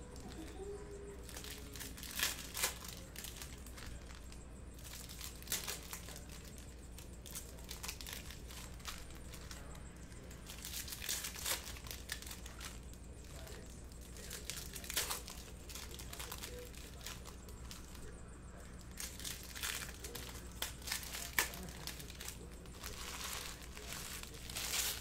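Foil trading-card pack wrappers crinkling and cards being handled and squared on a stack, in scattered short crackles and clicks.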